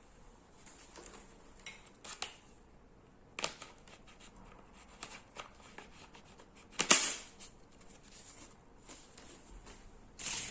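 Scattered clicks and rustles of objects being handled, with a sharper, louder knock about seven seconds in and a short burst of rustling near the end, over a faint steady high whine.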